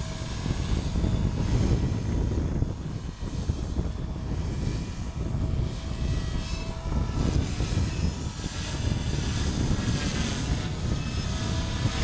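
Heavy wind buffeting the microphone, over the faint whine of a small Align T-Rex 250 electric RC helicopter's motor and rotor blades in flight, its pitch rising and falling as it manoeuvres.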